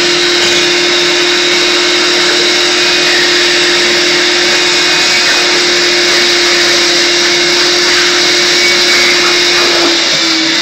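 Shop vac running steadily, a loud rushing hiss of air with a steady whine, its hose sucking as it is drawn slowly out from under an inflatable kayak's floor. The whine dips briefly just before the end.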